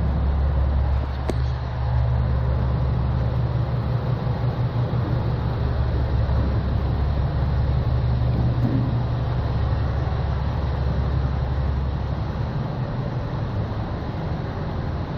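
Low, steady engine drone of a train standing at the platform, easing off about twelve seconds in.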